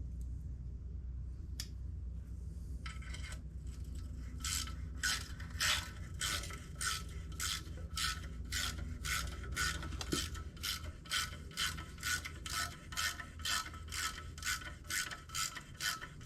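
Socket ratchet clicking in quick, even strokes, about two to three a second, as a bolt is run in, over a steady low hum.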